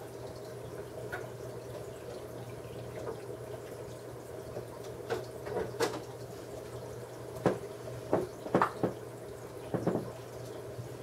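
Aquarium water trickling over a steady low hum, with a cluster of sharp clicks and splashes from about halfway through to near the end.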